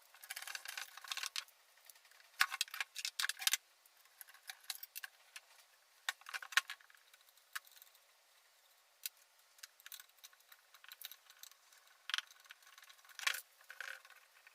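Small metal parts of an old drill clinking and rattling as they are handled, in irregular clusters of sharp clicks.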